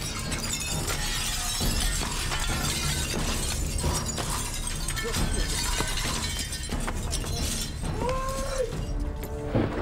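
A door being forced with a handheld police battering ram: repeated crashing strikes and glass shattering and breaking, a continuous jumble of crashes and crackling, with a short pitched call about eight seconds in.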